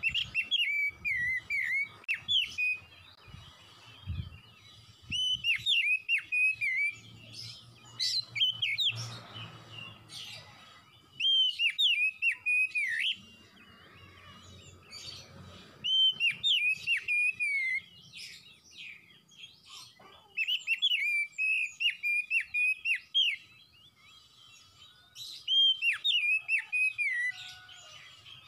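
Oriental magpie-robin (kacer) singing: loud whistled song phrases, rich and varied, that repeat every few seconds with short pauses between, mixed with thinner high chirps.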